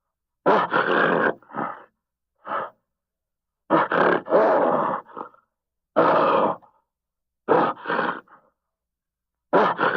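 Western lowland gorilla grunting in short bouts of two or three rough grunts, a bout every one to two seconds, with silence between.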